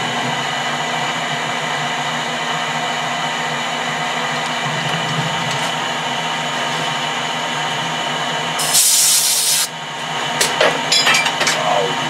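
Metal lathe running with a steady whine of many even tones. Near the end comes a one-second burst of hiss, then a few sharp clattering knocks.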